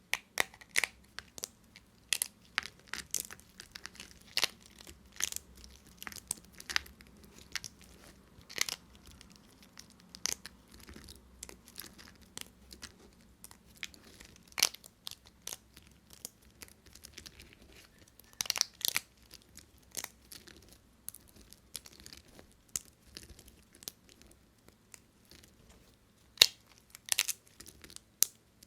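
A knife cutting through bars of dry soap, making a series of irregular crisp crackles and sharp snaps, with a few quick clusters of crunches.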